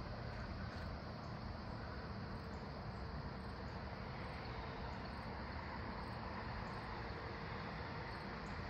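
Steady outdoor background noise: an even low rumble and hiss with a faint steady hum in it, and scattered faint high ticks.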